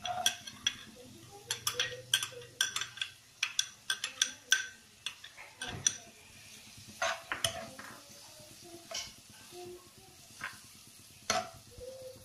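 A steel spoon scraping and clinking against a bowl and a frying pan as chopped carrot is tipped into sliced onions frying in coconut oil and stirred, over a faint sizzle. The clinks come thick and fast for the first five seconds, then only now and then.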